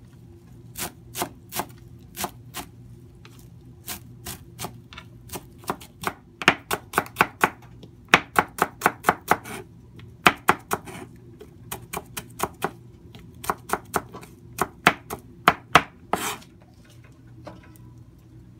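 Chef's knife chopping fresh leafy herbs on a cutting board: sharp knocks of the blade on the board, coming in runs of quick strokes, up to about six a second, with short pauses between. The chopping stops about two seconds before the end.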